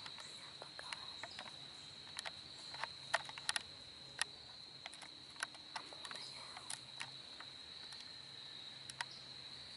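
Steady high-pitched chorus of crickets trilling without a break, with irregular sharp clicks and crackles scattered over it.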